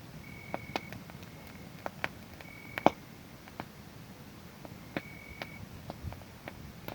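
Wood fire crackling with irregular sharp pops, the loudest about three seconds in, over a low steady rumble. A cricket chirps in short, even-pitched trills of about half a second, several times.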